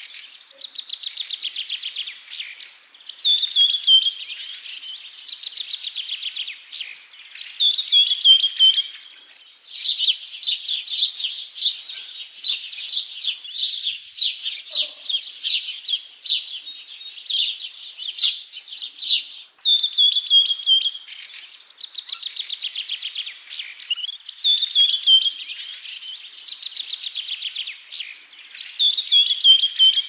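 Bird song: a short falling whistle running into a fast trill, repeated about every four seconds, with a stretch of dense rapid chirping in the middle that starts and stops abruptly.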